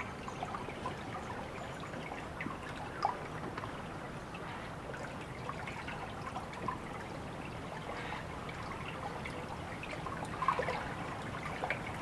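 Water trickling steadily, with small scattered drips and plinks and a couple of brief louder splashes.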